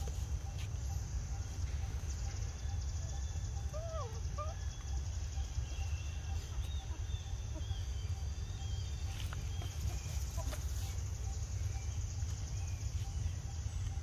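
Outdoor ambience: a steady low rumble and a steady high hum, with a couple of short rising-and-falling calls about four seconds in and faint high chirps a little later.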